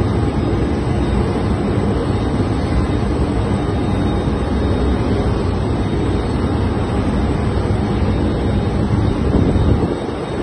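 Wind buffeting the microphone over a steady low rumble from aboard a vessel, likely its engines or machinery; it eases slightly near the end.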